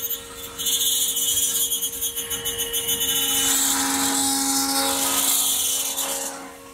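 Five-axis CNC machine spindle running at speed as the head moves along a large plastic part: a steady whine under a high, fluttering hiss, which drops away near the end.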